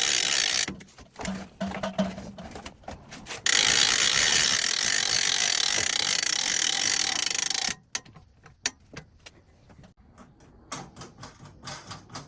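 Mechanism of a SuperHandy powered dolly running with a ratcheting, gear-like sound in two long stretches. Between and after the stretches come scattered clicks and knocks.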